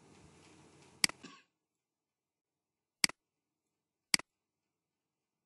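Three sharp single clicks of a computer mouse button: one about a second in, then two more about a second apart near the middle. A faint hiss stops dead after the first click.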